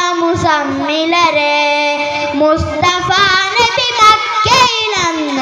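A boy singing a devotional song in praise of the Prophet solo into a microphone, heard through a loudspeaker, with long held notes that waver and bend in pitch.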